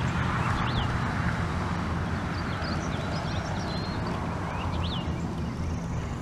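Chevrolet Silverado 2500HD's 6.0-litre gas V8 running steadily at idle, with a few bird chirps over it.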